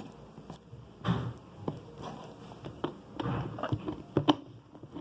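Close-up handling noises from slime-making materials: scattered small clicks, taps and rustles, with a sharper click a little after four seconds in.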